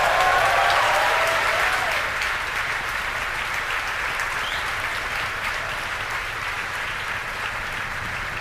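A crowd cheering and clapping as the Falcon 9 passes max-Q: whoops and shouts in the first couple of seconds, then steady applause.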